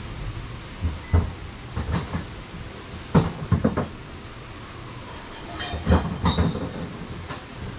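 Irregular knocks and clunks in scattered clusters over a steady hiss.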